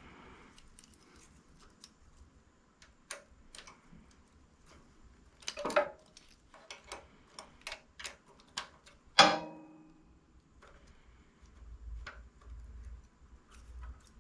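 Hand tools and metal parts clinking: a run of light, irregular clicks, with two louder metal clanks that ring briefly, about six and nine seconds in.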